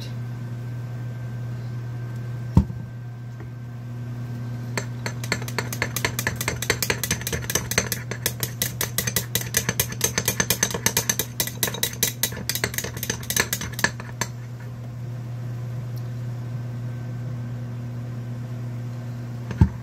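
Spoon stirring honey into mustard in a bowl, clinking rapidly against its sides for about ten seconds. A steady low hum from the running microwave lies underneath, with a sharp knock before the stirring and another near the end.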